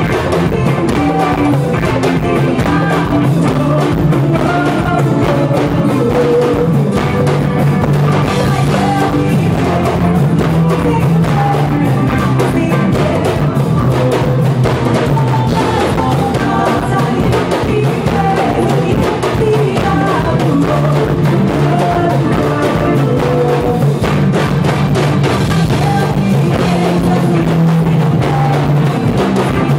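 Live band music: a woman singing over electric guitar, hand drums and a drum kit, played loud through a stage sound system.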